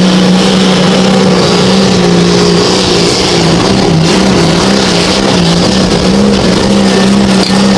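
Competition pulling vehicle's engine running loud and hard at a steady pitch that wavers slightly, as during a pull.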